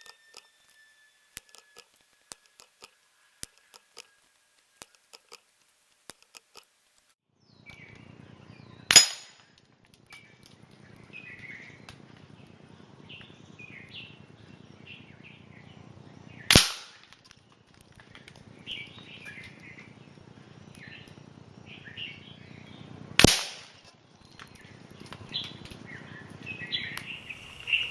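Three shots from a .22 EDgun Matador PCP air rifle, sharp reports about seven seconds apart, with birds chirping in the background. A few faint scattered clicks come before the first shot.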